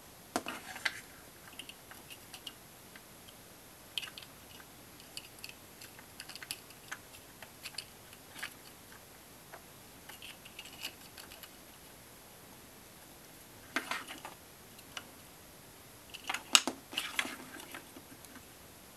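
Small 3D-printed plastic model-car parts clicking and rattling as they are handled and fitted together, in scattered clusters of light taps and scrapes; the loudest cluster comes near the end.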